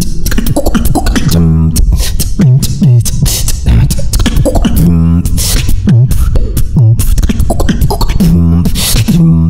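Human beatboxing into a handheld microphone: a fast, dense run of kick, snare and hi-hat mouth sounds over heavy bass. Short dropping bass tones and a few warbling, wobbling voiced tones run through it.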